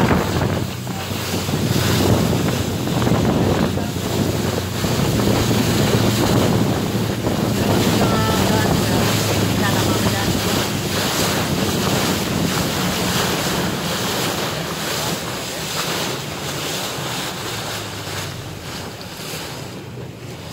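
Speedboat under way: a steady engine drone with water rushing against the hull and wind buffeting the microphone. The engine drone fades and the overall level drops over the last several seconds as the boat slows.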